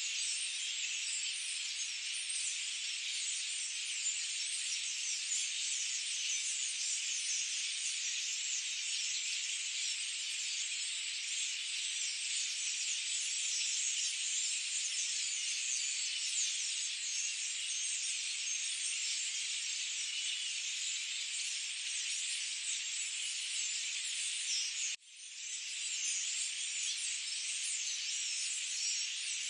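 Dense, steady high-pitched chorus of forest birds. Near the end it cuts out suddenly and fades back in within about a second.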